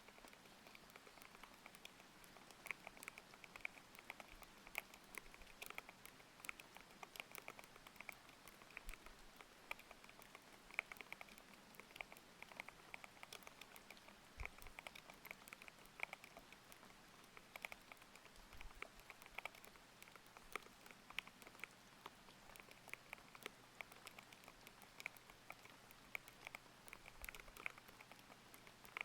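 Fast, irregular typing on a mechanical keyboard with Aqua King linear switches, a dense run of thocky keystrokes, over a soft steady hiss of rain.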